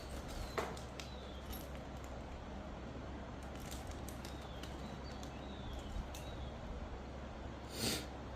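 Light clicks and knocks of objects being handled, the sharpest about half a second and a second in, with a short brushing rustle near the end, over a low steady background with faint high chirps.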